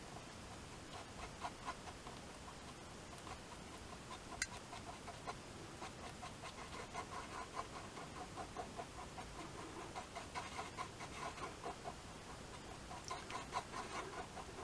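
Screwdriver tip stirring and scraping metal-loaded epoxy adhesive on a small card: a faint, quick run of small ticks and scrapes, with one sharper click about four seconds in.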